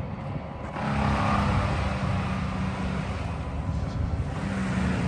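Vehicle engine running at low speed, rolling over a gravel and asphalt-millings drive, with road noise from the surface that swells about a second in.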